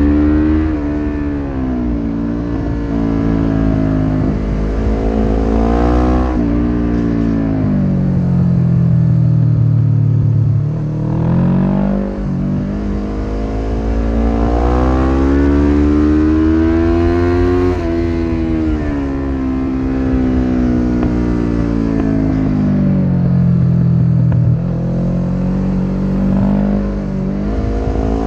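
1993 Suzuki GS500E's parallel-twin engine running through a Takkoni slip-on exhaust with a dB-killer insert, heard onboard while riding. The revs climb under acceleration and fall away off the throttle, several times over, with a sudden jump in pitch about twelve seconds in.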